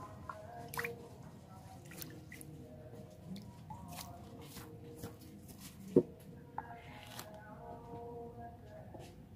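Water splashing and dripping as guppies are poured from a plastic bag into a basin of water, with small clicks and rustles from the bag. One sharp knock about six seconds in is the loudest sound.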